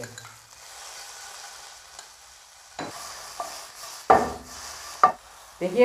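Chopped chicken and vegetables sizzling lightly in a hot nonstick frying pan over a gas flame. In the second half the pan is tossed, with a few sharp knocks and scrapes, the loudest about four and five seconds in.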